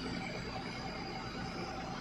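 Excavator-based pile-driving rig running steadily, its diesel engine and hydraulic pile hammer giving a dense, even machine noise with a thin steady high whine on top.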